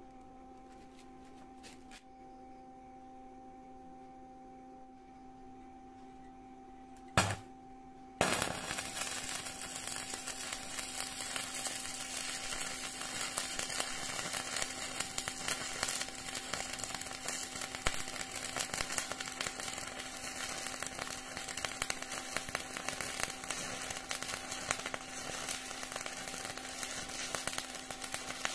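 Stick welding arc at about 50 amps: a sharp burst about seven seconds in, then a second later the arc catches and crackles steadily, over a faint low hum.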